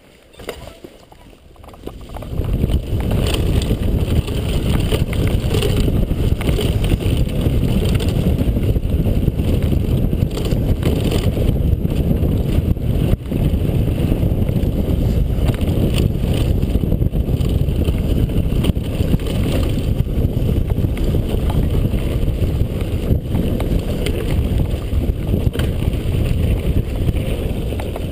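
Wind rushing over a helmet-mounted camera's microphone and a mountain bike rattling over a dry dirt trail at speed, starting about two seconds in, with the odd sharp knock from a bump.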